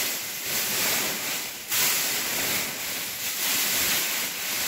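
A loud rushing hiss that swells and fades every second or so, with a sudden jump in level about two seconds in.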